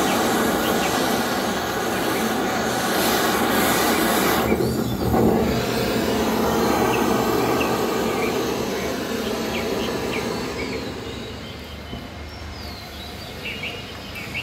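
Small LPG canister torch burning with a steady hiss of flame as it melts a brass rod. The sound dips briefly about five seconds in and fades away over the last few seconds.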